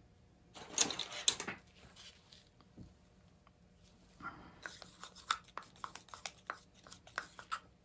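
Gloved hands handling a plastic cup of acrylic paint: a short rustle about a second in, then a run of light clicks and taps from about halfway through.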